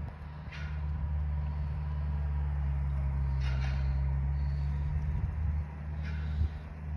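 Tractor engine running at a steady speed while pulling a disc harrow across a field, with three short high-pitched sounds spaced a few seconds apart.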